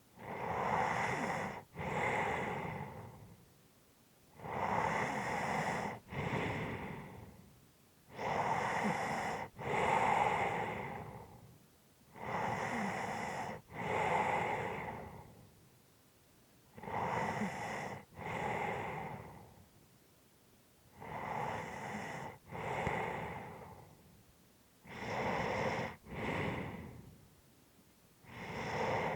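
A person breathing heavily and slowly, about one deep breath every four seconds. Each breath comes in two breathy halves with a brief break between them.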